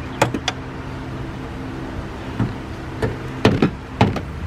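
Metal windshield wiper linkage of a 2004–2009 Toyota Prius clanking and knocking several times as it is handled and set back onto the cowl. A steady low machine hum runs underneath.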